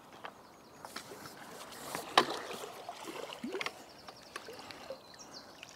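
Water splashing and sloshing as a mirror carp is drawn into a landing net and the net is lifted out of the water, with scattered knocks of the net and tackle and one sharp knock about two seconds in.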